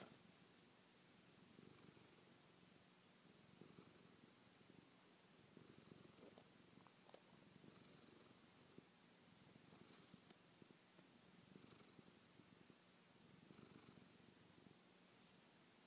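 Domestic cat purring very faintly, the purr swelling and fading about once every two seconds, with a faint high whistle at each swell.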